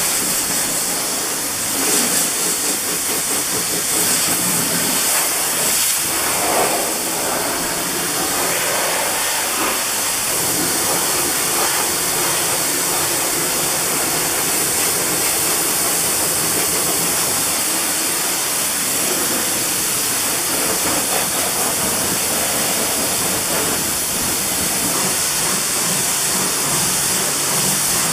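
Kränzle pressure washer's jet spraying water against a car's wheel arch, tyre and bodywork: a steady hiss of high-pressure water.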